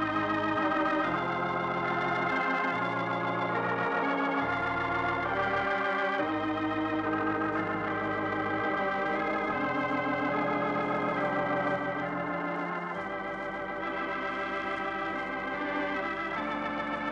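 Organ music: slow, sustained chords with a wavering vibrato over a bass line that moves to a new note every second or two.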